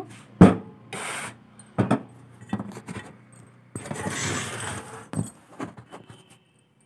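Close handling noises while potatoes are being prepared for cutting: a sharp knock about half a second in, scattered clicks and small knocks, a rubbing scrape lasting over a second past the middle, and another knock near the end.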